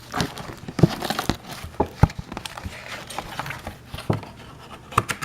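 A box being opened and its contents rummaged through: crinkling and rustling packaging with several sharp knocks as items are handled.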